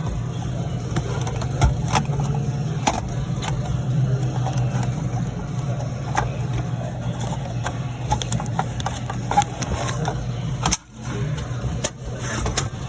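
Steady engine hum of a running car, with scattered light clicks and knocks over it. The hum drops away for a moment near the end.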